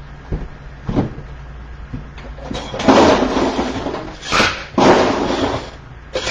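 Ice cubes being gathered off camera: a knock about a second in, then two rushes of rattling ice of about a second each, with a sharp clack between them.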